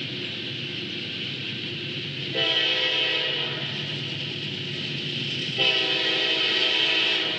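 Freight locomotive air horn sounding two long blasts, each a multi-note chord lasting about a second and a half, over a steady background rumble.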